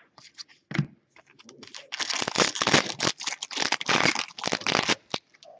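Foil trading-card pack wrapper being torn open and handled: a few light rustles, then about two seconds in a dense crinkling of foil that lasts some three seconds.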